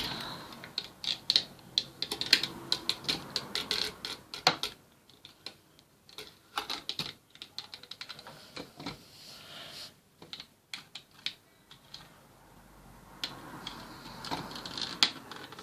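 Irregular light clicks and taps, dense for the first few seconds, sparse through the middle, then coming thicker again near the end.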